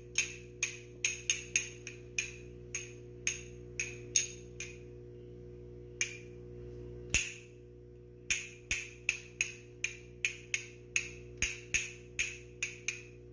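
Castanets clicking: sharp, bright single snaps, uneven at first with a pause of about two seconds near the middle, then a steadier run of about three clicks a second.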